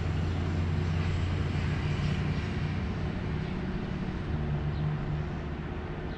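Steady low drone of a distant engine, easing off slightly in the second half.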